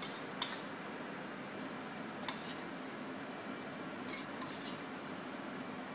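Steady background noise of a restaurant kitchen, with a few faint, scattered clinks of a metal spoon against a small stainless-steel bowl as salt-baked baby beetroot is spooned onto a plate.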